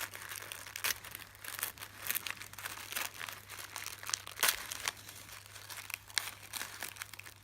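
Paper crinkling and crackling as it is handled and pulled at to open a gift box, in irregular sharp crackles, the loudest about four and a half seconds in.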